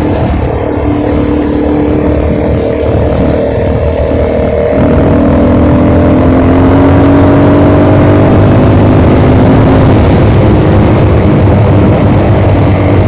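Engine running and slowly rising in pitch, as when speeding up, under heavy wind rumble on the microphone.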